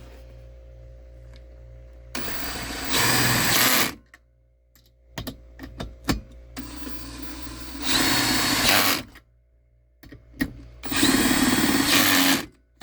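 Drill with a 10 mm socket driving self-tapping hex screws, in three runs of about two seconds each. Each run grows louder partway through as the screw bites and draws down.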